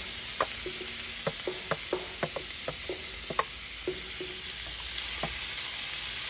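Finely shredded onions and peppers sizzling as they land in hot olive oil in a pan. A wooden spoon scrapes them off a stainless steel tray with a string of irregular knocks and clacks, which thin out after about four and a half seconds while the frying hiss goes on.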